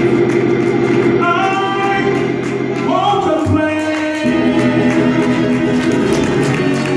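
Gospel choir singing, holding long notes with sliding pitches, moving to a new chord about four seconds in.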